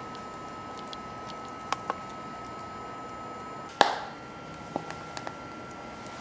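Wood burning in a BioLite camp stove: scattered sharp crackles and pops, the loudest a snap a little under four seconds in, over a steady high whine from the stove's built-in fan.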